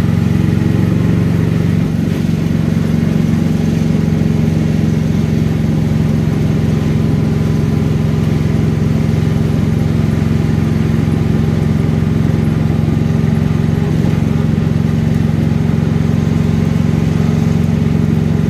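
Car engine and tyre noise heard from inside the cabin while driving, a steady low drone that holds even throughout.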